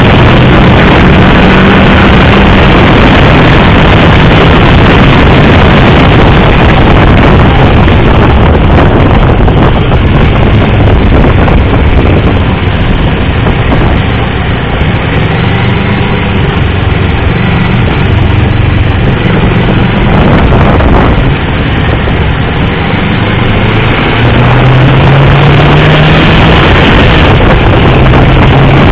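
Motorcycle engine running at track speed under heavy wind rush on the microphone. The engine note eases off twice for corners, then rises as the bike accelerates near the end.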